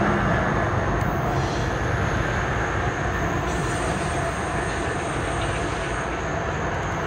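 Diesel locomotives of a light-engine consist running on the rails: a steady rumble of engines and wheels that eases off slightly. Thin, high steady tones come in about three and a half seconds in.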